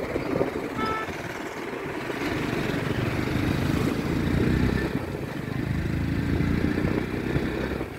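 Motorcycle engine running while riding along a road, with air and road noise. A brief high-pitched tone sounds about a second in.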